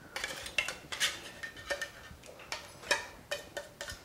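Knife scraping and tapping inside an open tuna can: a run of irregular short metallic clicks and scrapes.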